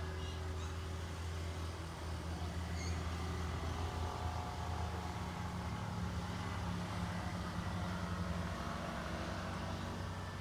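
Steady low rumble of a motor vehicle engine running nearby, swelling slightly midway. A few faint high chirps near the start and about three seconds in.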